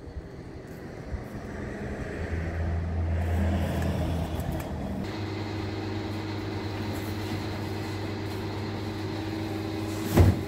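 Engine noise of a passing motor vehicle swelling and easing off, then a steady low mechanical hum. Near the end, one sharp thump as a cardboard box is set down on a stack.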